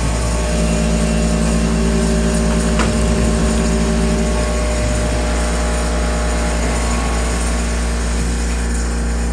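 CNC-converted Grizzly G0704 benchtop mill cutting a metal part with an end mill: the belt-driven three-phase spindle runs steadily with a low hum over a hiss, and stepper-motor tones start and stop as the axes move. A single click sounds about three seconds in.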